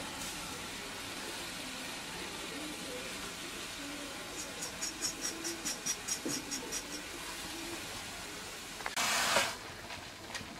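Nettle leaves cooking in a metal pot over an open wood fire, with a steady low hiss. A rapid run of high chirps, about five a second, comes midway, and a short loud sizzling hiss about nine seconds in.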